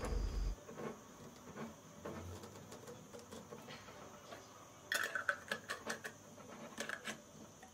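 Metal twist-off lids being screwed tightly onto glass jars: quick runs of scraping clicks from the lids turning on the jar threads, loudest between about five and seven seconds in.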